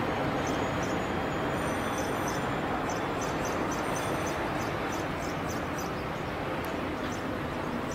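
A steady, broad rumbling noise that eases slightly over the last few seconds, with a short high chirp repeating about three times a second above it.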